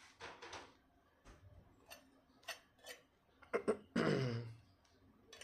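Soft mouth clicks and smacks of someone eating. About four seconds in comes a short, low throat sound that falls in pitch.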